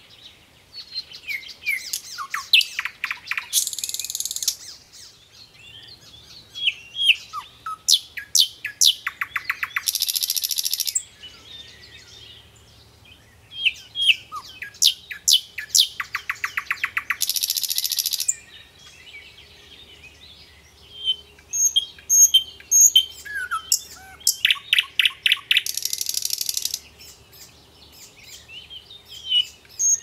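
Nightingale singing: four loud song phrases a few seconds apart, each a run of quick whistles and rapidly repeated notes that ends in a fast, buzzing rattle.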